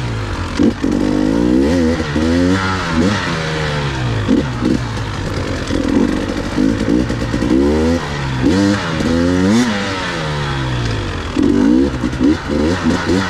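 Two-stroke enduro motorcycle being ridden on a dirt trail, the engine revving up and falling back again and again with the throttle, its pitch rising and dropping every second or so.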